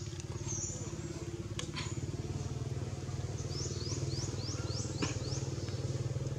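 A motor engine running steadily nearby with an even, low pulsing hum. A little past halfway, a quick run of about seven short high chirps comes over it, and a few sharp clicks sound along the way.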